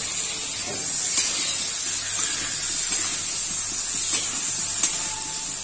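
Diced potatoes and tomatoes sizzling in hot oil in a wok, with a metal spatula scraping and clicking against the pan a few times.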